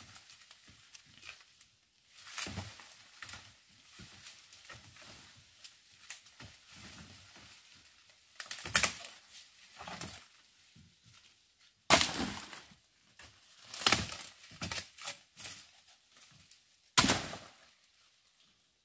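Irregular crunches and snaps with a few sharp knocks, scattered several seconds apart and loudest about twelve, fourteen and seventeen seconds in, with quieter rustling between.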